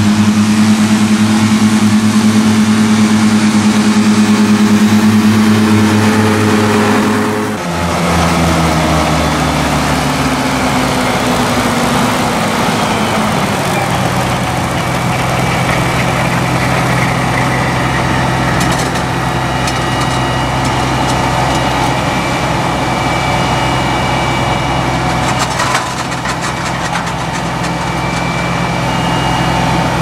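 Krone BiG M 420 self-propelled mower's V8 diesel running steadily under load while mowing. About a quarter of the way in the sound breaks off abruptly; the engine note then falls over several seconds and settles lower, with a faint high whine above it.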